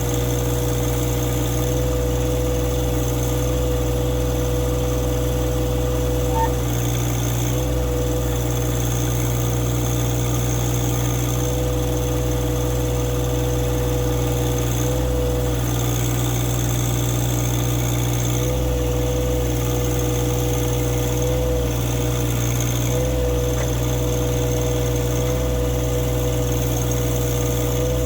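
A compact tractor's Yanmar three-cylinder diesel engine running at a steady speed, wavering slightly in pitch a few times.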